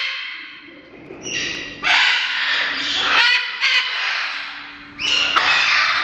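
Parrots calling loudly, several raucous calls one after another starting about a second in.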